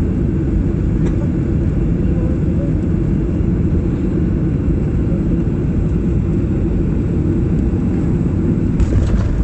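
Boeing 737 jet engine noise during landing: a loud, steady low rumble, with a few sharp clicks near the end.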